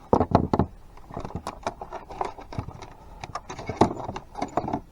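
Irregular light clicks, taps and rattles of small parts being handled: the USB port, its nut and wiring being worked through the hole in a plastic dash.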